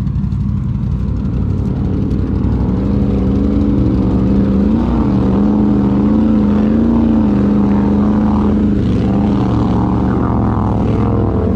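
ATV engine running at low, fairly steady revs, getting louder about two and a half seconds in, its pitch rising and dipping slightly.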